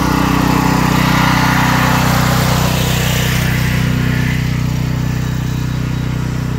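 Portable generator's small engine running steadily at a constant speed, giving an unchanging drone. A hiss rides over it in the first half and fades about halfway through.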